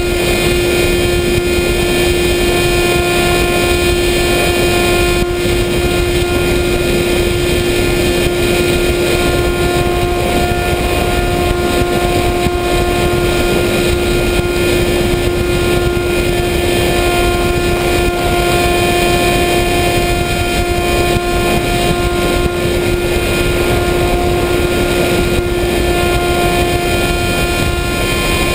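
Motor and propeller of an FPV model aircraft running at a steady pitch, with heavy rushing wind noise on the onboard microphone.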